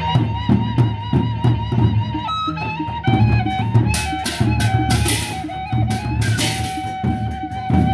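Sasak gendang beleq ensemble playing: a held, stepping bamboo flute (suling) melody over steady beats of the big drums. About four seconds in, the hand cymbals come in with repeated loud clashes.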